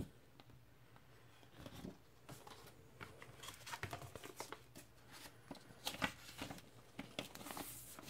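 Faint paper rustling and scraping from a vinyl LP's paper inner sleeve and card insert being handled, with a sharp tick at the start and irregular light rustles and clicks that grow busier in the second half.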